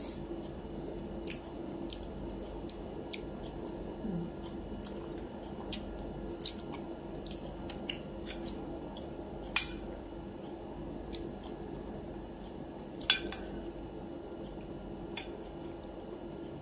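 Metal fork clinking and scraping against a plate in scattered small clicks, with two louder clinks about ten and thirteen seconds in, over a steady low background hum.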